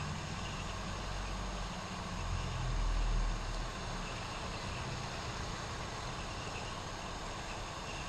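Small handheld heat gun blowing hot air in a steady whoosh with a low hum, heating a flight controller's STM32 CPU to melt its solder so the chip can be lifted off. A low rumble swells briefly about three seconds in.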